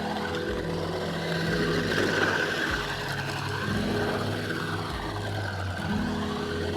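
Small electric motor and gearbox of a toy RC truck whirring as it drives, the pitch shifting as the throttle changes.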